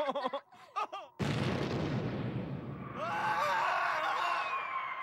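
Cartoon dynamite explosion sound effect: a sudden loud blast about a second in that rumbles on, with a whistle falling in pitch through the last two seconds.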